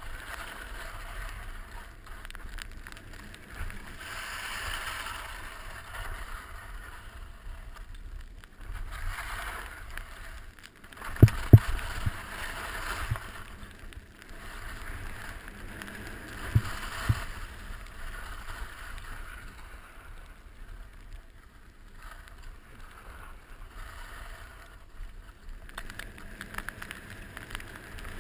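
2014 Völkl One skis sliding and turning on soft snow, the hiss of the snow rising and falling with each turn over a low wind rumble on the microphone. A few sharp thumps come about eleven and again about seventeen seconds in.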